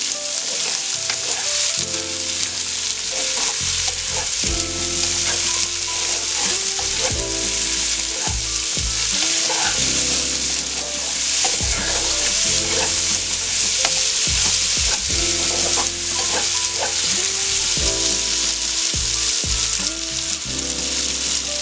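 Sweet pumpkin and jackfruit seeds sizzling in hot oil with salt and turmeric as they are stirred and sautéed in the pan, with scattered clicks of the stirring utensil.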